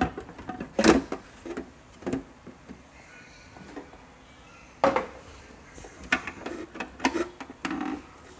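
Hard plastic parts of a Pureit Classic water purifier knocking and clicking as they are handled and fitted together: a handful of separate knocks, the loudest about a second in and about five seconds in.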